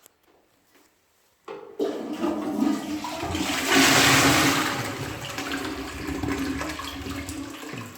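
Balterley Ambience toilet flushing: a sudden rush of water starts about a second and a half in, is loudest around four seconds in, then carries on a little lower.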